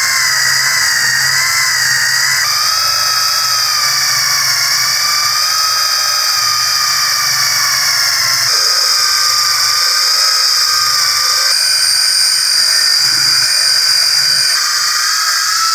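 Electric power tool running at high speed with a steady, high-pitched whine; its pitch steps abruptly a few times.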